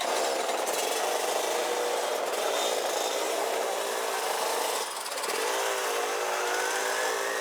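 Rotax Max DD2 125cc single-cylinder two-stroke kart engine running hard, heard onboard with wind rush on the microphone. About five seconds in the engine note drops briefly as the throttle comes off, then rises steadily in pitch as it pulls again.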